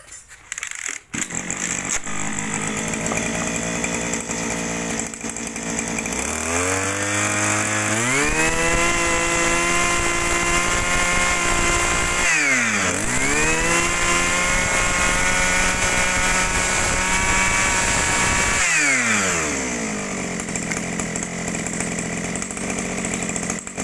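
Mitsubishi TL261 two-stroke brush cutter engine starting about a second in and idling. It is then revved up to full throttle and held there, with one quick dip and re-rev about halfway. Near the end it drops back to idle and stops.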